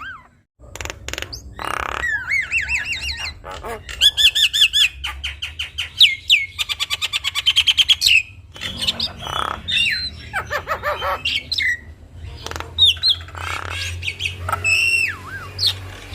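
Javan myna (jalak kebo) singing a varied song: looping, rising whistles, then long runs of fast, evenly repeated notes from about four to eight seconds in, and harsh, rasping squawks in the second half.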